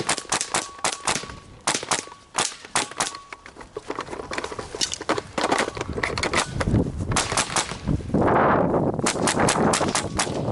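Walther/Colt M4 .22LR semi-automatic rifle firing quick strings of sharp shots, about three a second, with short pauses between strings. From about eight seconds in, a loud steady rushing noise runs under the shots.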